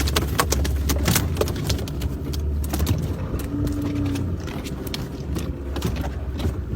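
Boat engine running with a steady low rumble, with many sharp clicks and knocks rattling over it.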